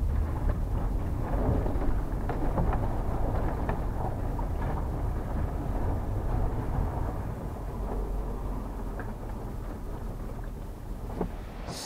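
Cab rumble of a Class C RV with a 7.4-litre Chevy 454 V8, rolling slowly over a potholed gravel lot, with scattered small clicks and knocks throughout.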